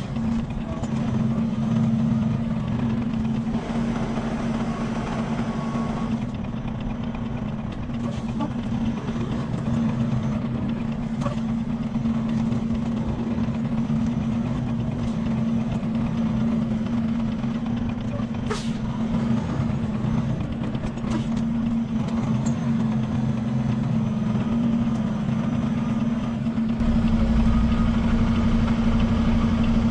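Semi truck's diesel engine idling steadily, a low even hum, with a single sharp click about two-thirds of the way through. Near the end a deeper rumble comes up and the sound grows a little louder.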